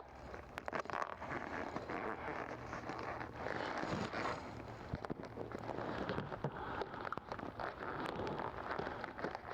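Rustling and scraping of a leather seat cover being worked into place on a seat, with scattered small clicks and knocks.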